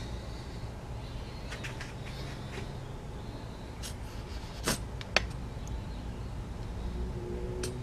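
Soft clicks and ticks of a plastic mustard squeeze bottle being handled and squeezed over a knife blade, the clearest two about half a second apart near the middle, over a steady low hum.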